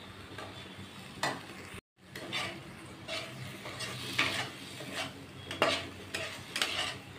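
Steel spatula stirring and scraping okra in thick yogurt masala around a nonstick kadai, in repeated irregular strokes over a low sizzle of frying. The sound cuts out briefly about two seconds in.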